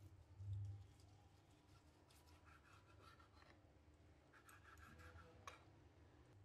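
Faint scraping of a knife sawing through boiled chicken breast against a wooden cutting board, in two short spells, with a soft low bump about half a second in and a small click near the end.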